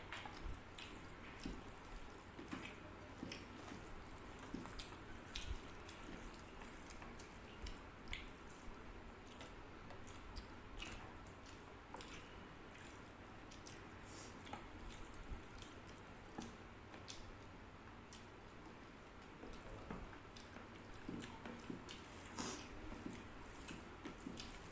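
Close-up eating sounds: chewing and lip smacks, with many small wet clicks, and fingers squishing rice and curry together on the plates.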